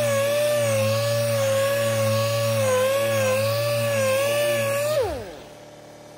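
Power sander running on body filler with a steady whine that wavers and dips slightly as it is worked against the panel. About five seconds in it is switched off and winds down quickly in pitch to a stop.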